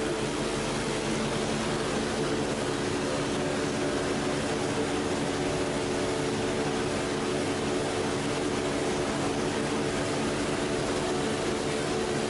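Plastic box-strapping extrusion line running: a steady machine drone with several constant hum tones over an even hiss, unchanging throughout.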